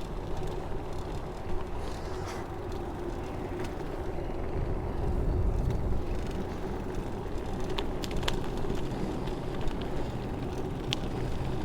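Steady low rumble of a moving bicycle, with a faint steady hum and a few light clicks near eight and eleven seconds in.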